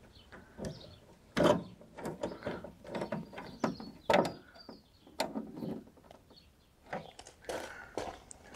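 Irregular clicks and knocks of hand tools and parts being handled during work on a VW T4's front grille, with two sharper knocks about one and a half and four seconds in.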